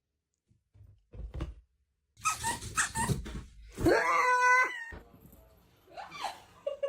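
Some knocks and rustling, then a dog gives one drawn-out howl about a second long, rising at the start and dropping at the end.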